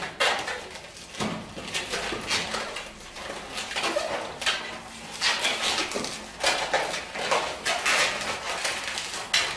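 260 latex modelling balloons squeaking and rubbing against each other as they are twisted into bubbles and locked together, in short irregular bursts.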